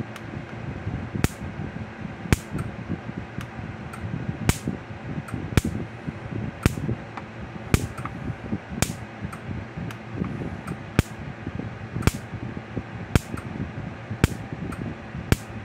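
Zareba Red Snap'r LI30C electric fence charger sparking across a screwdriver bridged between its fence and ground terminals: a sharp snap about once a second, with a few fainter clicks between. A nice sharp snap, the sign of a strong output pulse now that the charger has a new capacitor and transformer.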